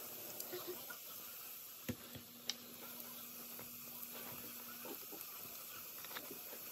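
Faint hiss with a few light clicks and taps around two seconds in as a fried donut is handled and dipped into glaze in a stainless steel bowl.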